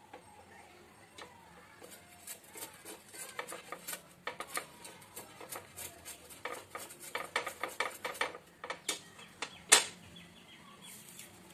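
Palmyra sprout rubbed to and fro on a flat stainless steel grater over a steel plate: a quick run of short scraping strokes with a metallic rattle, and one louder sharp clack near the end.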